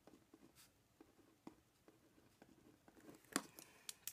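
Faint scratching of a Uni-ball Signo gel pen writing on paper, with a few sharp clicks near the end.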